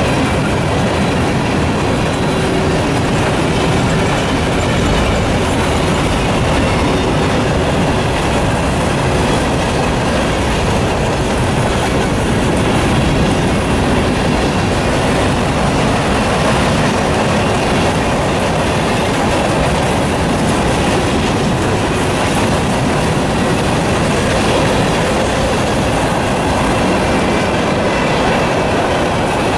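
Freight cars of a Norfolk Southern manifest train rolling past at speed: a steady rumble of steel wheels on the rails.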